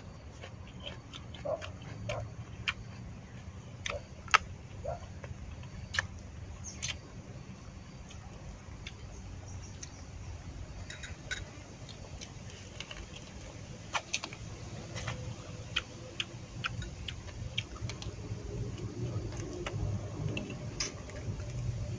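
A person eating with chopsticks from a ceramic bowl: scattered sharp clicks and short mouth smacks of chewing, irregular, a few seconds apart, over a steady low hum.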